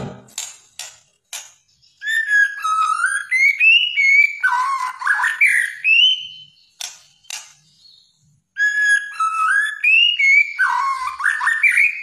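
Pied white-rumped shama singing: two runs of loud, varied whistled phrases sliding up and down, each several seconds long, with a few sharp clicks near the start and again between the runs.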